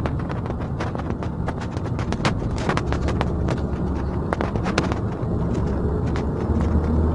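Honda Civic driving on the road: a steady low rumble of engine and tyre noise heard from inside the car, with many small clicks and knocks scattered through it.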